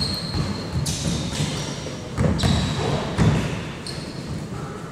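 Basketball bouncing on an indoor court, a few separate thuds in about four seconds.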